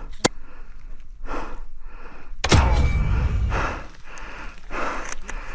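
A single sharp crack just after the start, the shot of a spring-powered Novritsch SSG-24 airsoft sniper rifle, then a loud thump about two and a half seconds in, over a player's repeated heavy breaths.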